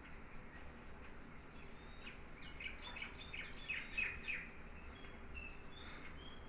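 Birds chirping: a cluster of short, high chirps around the middle, over a faint steady low hum.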